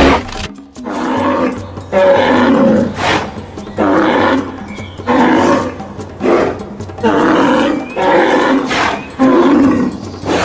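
Rhinoceros calling: a series of loud calls, each under a second long, repeated roughly once a second.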